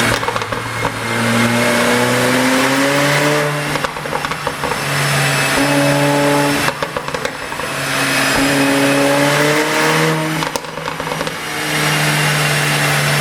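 Mercedes-AMG CLA45's turbocharged four-cylinder exhaust, tuned for pops, climbing in revs several times. Each time the revs drop, a burst of crackles and pops comes from the exhaust.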